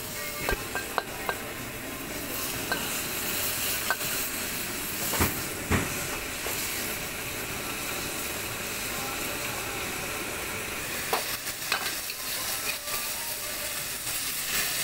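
Kuey teow with prawns and egg sizzling steadily in a wok while a metal ladle stirs and scrapes it, clinking against the wok now and then, with two louder knocks about five seconds in.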